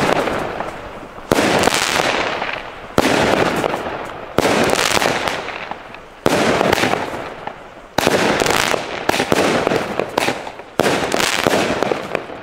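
Pyrotrade Zombie 1 compact firework battery firing about eight shots, each a sharp bang a second or two apart. Each bang trails off into a fading crackle as the burst spreads.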